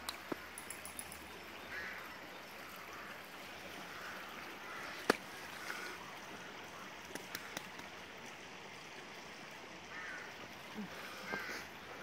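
Woodland ambience: a steady hiss with a few faint short calls scattered through it, and one sharp click about five seconds in.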